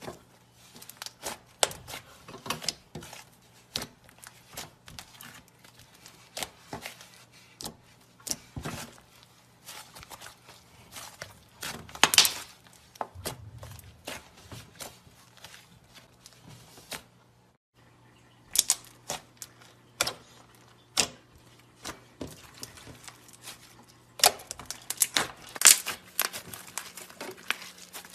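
Hands squeezing, folding and poking thick slime: an irregular run of sticky clicks, crackles and small pops as air pockets burst. The sound breaks off briefly about two-thirds of the way through, then resumes with a denser crackle near the end.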